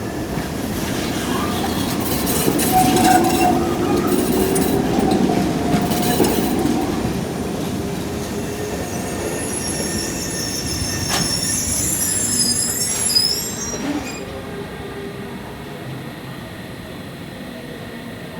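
Tram running along the street rails, its rumble loudest in the first few seconds. Past the middle its wheels squeal high for a few seconds, then the sound drops away to a quieter street hum.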